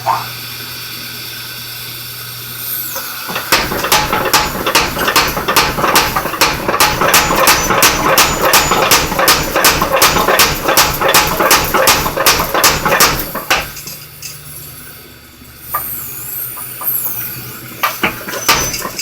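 100 lb Fairbanks mechanical power hammer: its motor runs steadily, then about three and a half seconds in the ram starts striking in a fast, even rhythm of several blows a second. The blows stop after about ten seconds, and a few single blows follow near the end.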